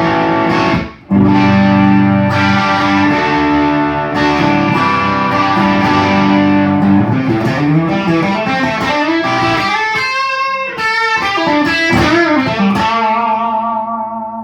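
Electric guitar played through an Orange Micro Dark Terror tube amp head, fitted with its stock ECC83 preamp tube, into a Vox 2x12 cabinet, picked up by a phone microphone. A short strum with a brief stop, then a long held chord, then a run of shifting, bending notes, with the last note ringing out and fading near the end.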